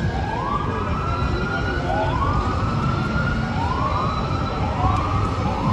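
Electronic siren of an FDNY emergency vehicle cycling: each sweep rises quickly in pitch and then holds high, and the sweeps come closer together toward the end. A steady rumble of city traffic runs underneath.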